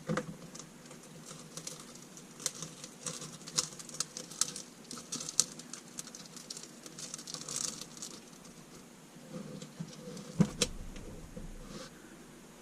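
Scattered small clicks, taps and light rattles of hard plastic parts being handled, with a louder knock about ten and a half seconds in.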